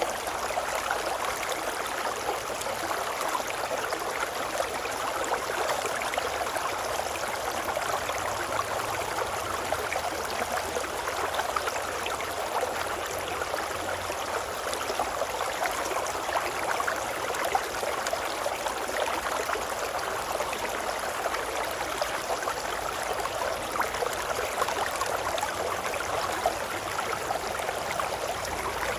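River babbling: a steady, even rush of running water.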